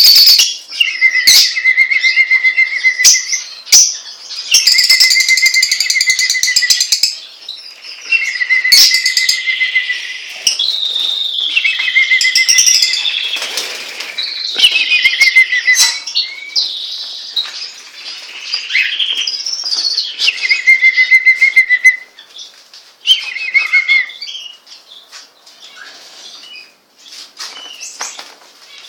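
Pet songbirds singing loudly in repeated song phrases, each a few seconds long and often ending in a fast trill. The song gives way to softer, scattered notes for the last several seconds.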